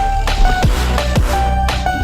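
Electronic background music with a driving beat: a kick drum about twice a second under a steady bass and short held synth notes.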